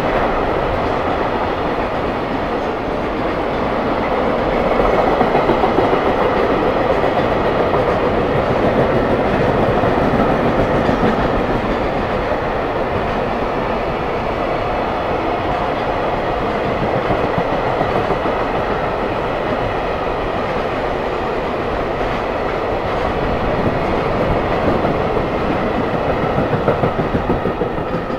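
JR Freight container train's wagons rolling through without stopping: a loud, steady rumble of steel wheels on the rails that eases off near the end as the last wagons clear.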